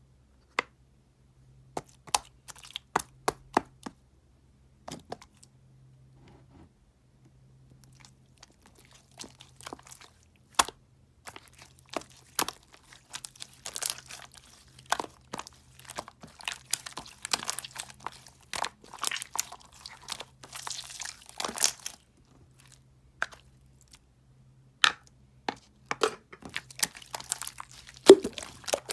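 Close-up handling sounds: a few scattered sharp clicks and taps, then a long stretch of dense crackling and crinkling, then more clicks, the loudest near the end. A faint steady hum runs underneath.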